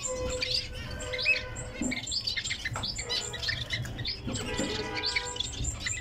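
Several aviary finches, long-tailed finches among them, chirping with many quick high calls, mixed with a few longer held whistled notes.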